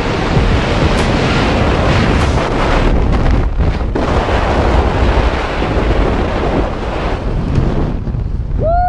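Strong wind rushing over the camera's microphone during a tandem skydive, steady and loud, with a short dip about three and a half seconds in as the parachute is open overhead.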